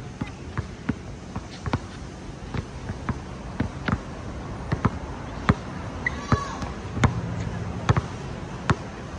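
Basketball being dribbled on a hard outdoor court: a run of irregular, sharp bounces about half a second to a second apart, the loudest in the second half. A brief high squeak about six seconds in.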